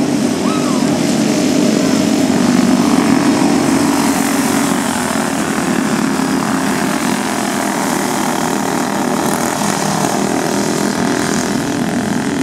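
Small engines of racing go-karts buzzing steadily as they lap a dirt oval, swelling about three seconds in as a kart passes closer.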